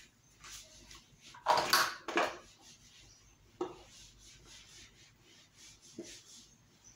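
Whiteboard eraser rubbing across the board in quick repeated wiping strokes, with a louder scrub about a second and a half in and a couple of light knocks.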